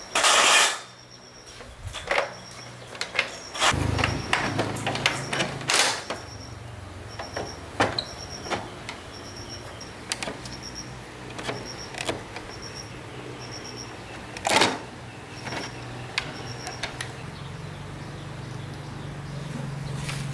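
Scattered sharp clicks and knocks over a low steady hum that grows louder near the end.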